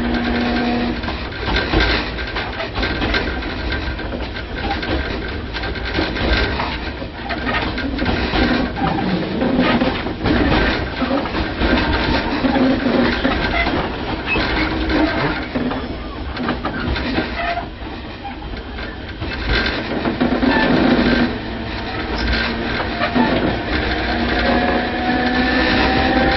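Tobu 5050 series electric train (set 5160F) running, heard from inside the car: the nose-suspended traction motors and gears of its old 7800-series running gear hum, and the wheels knock over rail joints. A steady motor hum stops about a second in, and near the end a motor whine rises in pitch as the train picks up speed.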